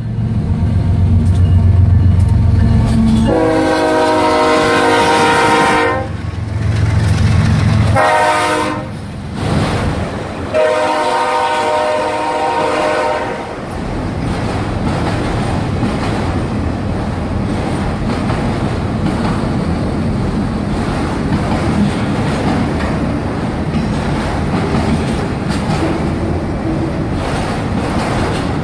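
Diesel freight locomotive air horn sounding two long blasts with a short one between, chord-like with several tones together, over the heavy rumble of the locomotives passing close by; this fits the end of the long-long-short-long grade-crossing signal. From about halfway through, a steady rolling rumble and rattle of autorack cars going past.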